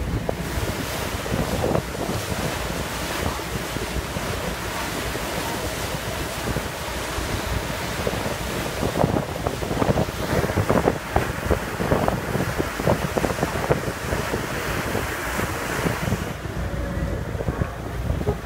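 Wind buffeting the microphone on the open deck of a moving boat, over a steady low rumble and the rush of water. The buffeting gusts harder about halfway through.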